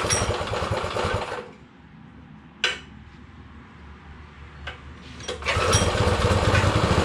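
Baja Warrior mini bike's small single-cylinder engine running, with its idle speed being adjusted: it runs fast for about a second and a half, drops to a low, much quieter idle, and picks up again about five and a half seconds in. A single sharp click sounds near the middle.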